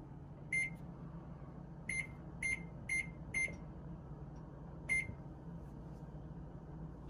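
Six short electronic keypad beeps, all at the same pitch, as a 20-minute timer is keyed into a microwave's touch panel and started. The last beep sets the countdown running.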